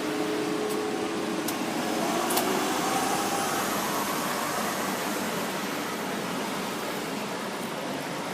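City road traffic: cars driving past in a steady wash of engine and tyre noise, with a few faint clicks in the first couple of seconds.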